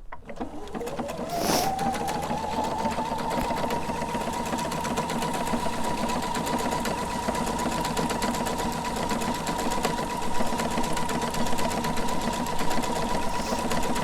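Electronic sewing machine started with its start-stop button, sewing a decorative stitch: the motor whine rises in pitch over the first couple of seconds and then holds steady, over rapid, even needle strokes.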